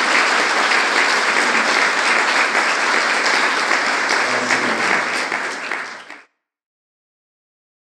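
Audience applauding steadily, a dense patter of many hands clapping; the sound fades out to silence about six seconds in.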